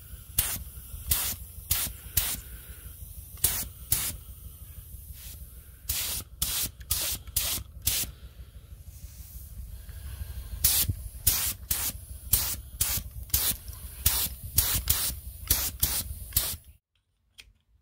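Gravity-feed air spray gun firing many short hissing bursts as metal primer and paint are sprayed onto the cast-iron grinder body, over a low steady rumble. The bursts stop about a second before the end.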